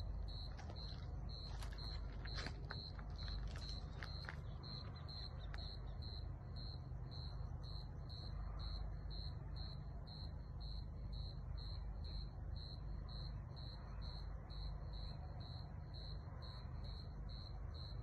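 A cricket chirping steadily, a regular high-pitched pulse about two to three times a second, over a low steady rumble. A few short sharp clicks come in the first few seconds.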